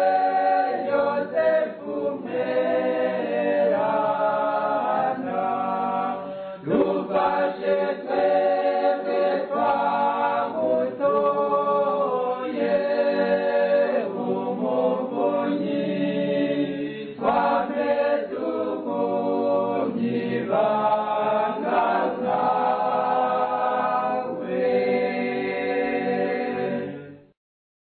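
A choir singing a Kirundi Catholic hymn to Saint Joseph. The singing stops and fades out quickly about a second before the end.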